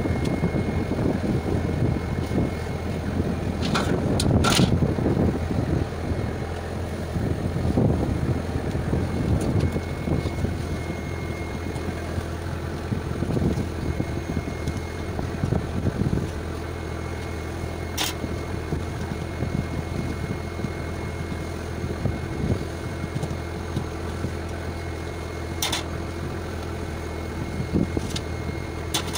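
A fishing boat's engine runs with a steady low drone, under irregular soft thumps and a few sharp clicks of galley work.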